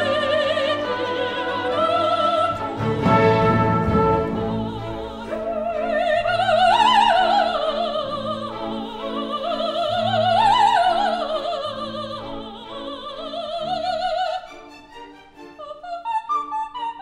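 Operatic music: a high voice sings with a wide vibrato in rising and falling phrases over sustained orchestral notes. About fourteen seconds in it gives way to quieter, short separate notes.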